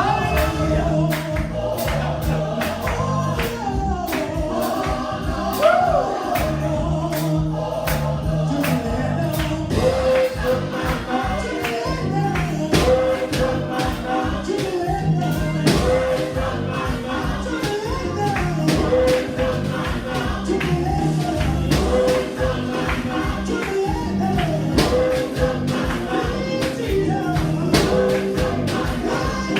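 Gospel music: a choir singing over a steady beat of percussion and bass.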